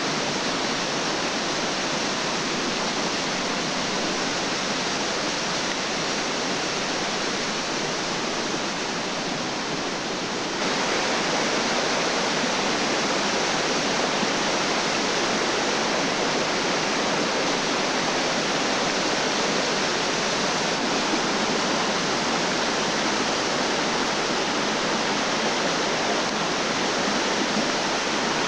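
Waterfall rushing and splashing down a rocky gorge, a steady loud roar of falling water that steps up slightly in level about ten seconds in.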